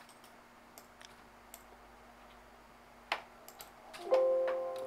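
Scattered faint computer mouse clicks with a sharper click about three seconds in, then a single held musical tone that starts about four seconds in and fades.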